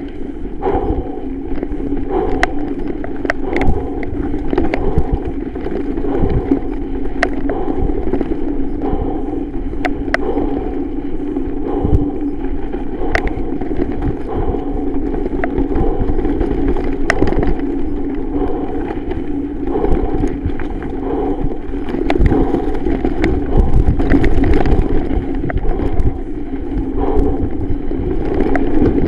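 Norco Range 7.1 full-suspension mountain bike riding fast over rough dirt singletrack: steady tyre and trail rumble with frequent sharp clicks and knocks as the bike rattles over bumps.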